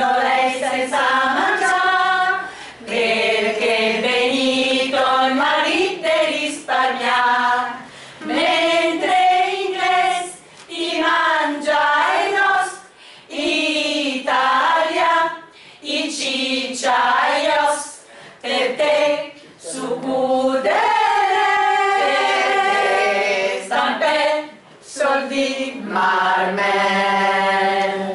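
A small women's choir singing unaccompanied, in sung phrases of a few seconds with short breaks between them.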